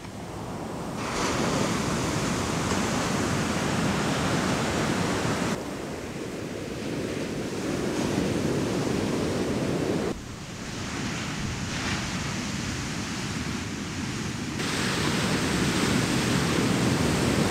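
Ocean surf breaking and washing up on a sandy beach: a steady rushing noise that jumps abruptly in level about four times.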